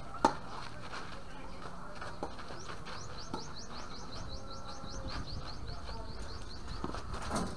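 A tennis ball struck sharply by a racket about a quarter second in, with a few fainter ball hits later. Through the middle a bird repeats a fast series of short high chirps, about five a second, for roughly four seconds.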